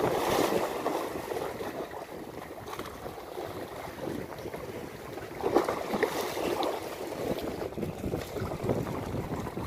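Sea waves washing and splashing against the rocks, with wind buffeting the microphone; the wash surges louder at the start and again about five and a half seconds in.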